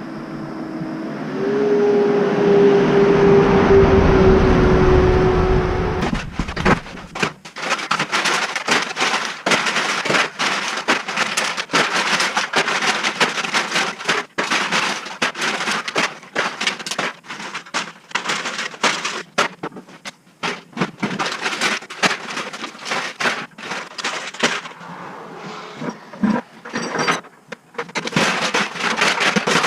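A motor hums steadily with a low rumble for about six seconds. Then comes a long run of dense clattering and cracking, like scrap metal being tossed and loaded into a truck.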